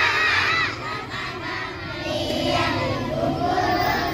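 A crowd of young children shouting and singing together, with high voices loudest in the first half-second and group singing from about two seconds in.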